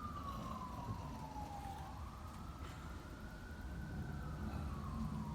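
A wailing siren tone slowly rising and falling in pitch, about two full up-and-down sweeps, over a steady low rumble.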